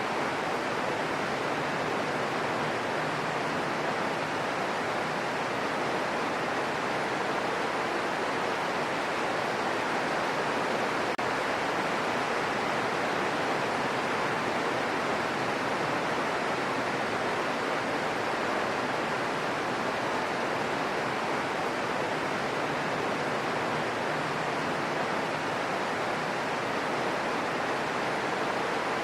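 Steady rain falling, an even hiss that does not change in level.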